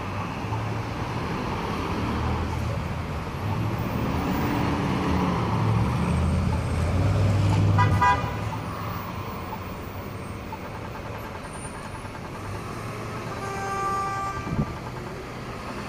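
Road traffic through an intersection: a passing car's engine and tyre rumble builds to its loudest about eight seconds in, where a short car horn toot sounds. A second, longer horn tone comes near the end.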